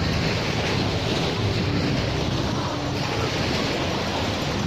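Small waves breaking and washing up the shore in a steady wash of surf, with wind rumbling on the microphone.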